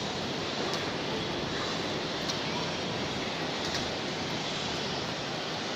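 Floodwater rushing, a steady, even roar of water.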